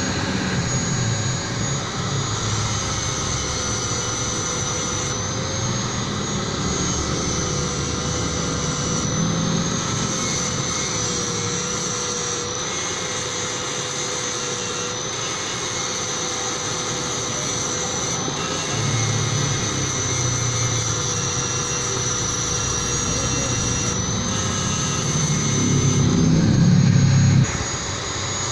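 Electric angle grinder with an abrasive disc running steadily with a whining motor, grinding down the weld on a stainless steel pipe elbow. The grinding grows heavier and lighter as the disc is pressed to the metal and eased off, and it is loudest shortly before the end.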